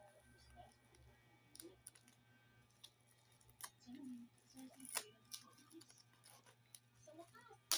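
Faint handling of cardboard packaging: a few sharp, isolated clicks and taps spread out, with the loudest click near the end.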